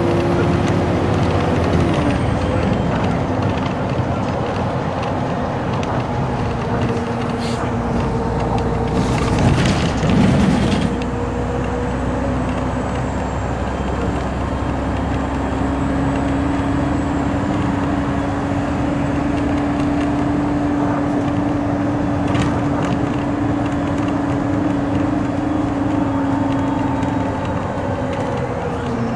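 Road noise of a car travelling at highway speed, heard from inside the car: a steady tyre and engine drone with a constant hum. About nine to eleven seconds in there is a louder rush, as of a vehicle passing close by.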